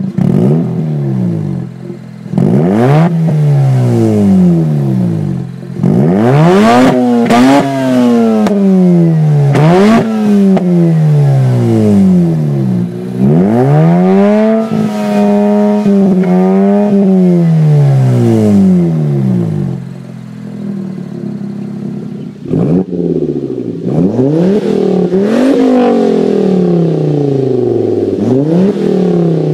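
A straight-piped Mazda RX-8's twin-rotor Wankel engine is revved again and again, the pitch rising and falling with each blip, with a few revs held for a couple of seconds. About three quarters of the way in, it gives way to a Volvo S60R's turbocharged five-cylinder with an IPD exhaust, revved in several blips.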